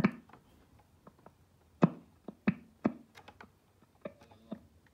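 A series of sharp, irregularly spaced clicks and taps with quiet between them. The loudest come at the very start and around two to three seconds in.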